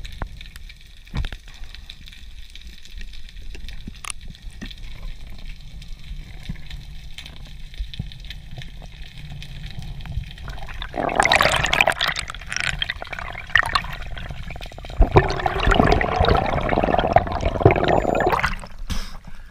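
Underwater rushing and bubbling of water during a freediver's ascent toward the surface. For the first ten seconds it is a low rumble with scattered clicks. From about eleven seconds in it turns to a loud rush in two long spells.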